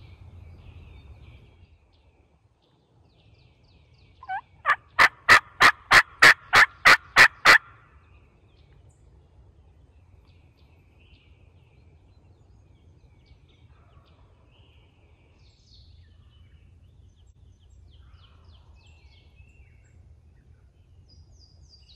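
Turkey call worked to imitate hen yelping, to coax a gobbling tom in: a close, loud run of about a dozen evenly spaced yelps, roughly three to four a second, opening with a couple of softer notes. Faint songbird chirps sound around it.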